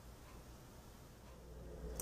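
Faint room tone with a steady low hum, which grows a little louder near the end.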